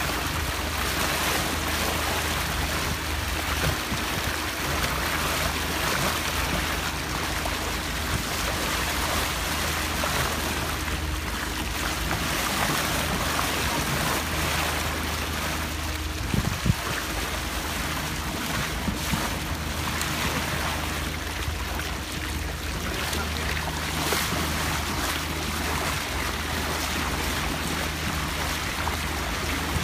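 Water rushing along the hull of a sailboat under motor, over the steady low drone of its engine, with a couple of brief knocks about halfway through.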